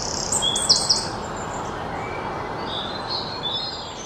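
Small birds chirping in quick high calls about half a second in, with fainter calls near the end, over a steady background hiss that slowly fades.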